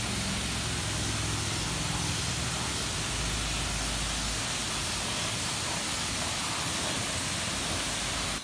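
Self-serve car wash high-pressure wand spraying water onto a car's front end: a steady, loud hiss of spray.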